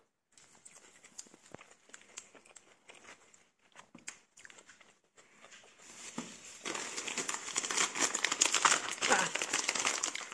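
Plastic grocery bags and packaging crinkling as they are handled. The crinkling is faint at first and grows much louder and denser from about six seconds in.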